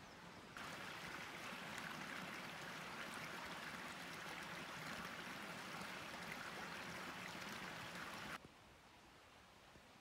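Small mountain stream running over rocks, a steady rush of water that starts suddenly about half a second in and cuts off sharply near the end.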